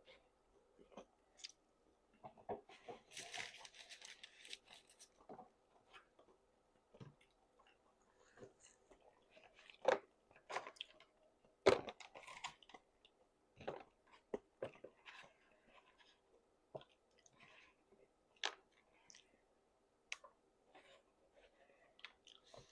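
Faint close-up eating sounds: chewing with irregular wet mouth clicks and smacks, a few sharper ones around the middle, and a short rustle about three seconds in.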